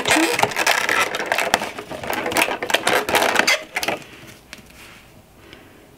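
Cardboard advent-calendar door being torn open and tissue paper rustling and crinkling, a dense crackle of rips for about three and a half seconds that then dies down.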